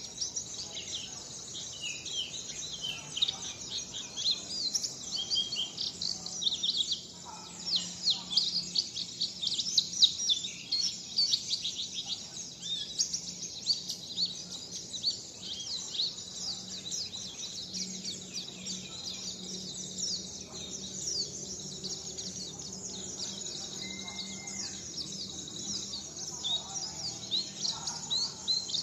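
Songbirds chirping and singing in a dense, continuous stream of quick, high-pitched chirps, many overlapping.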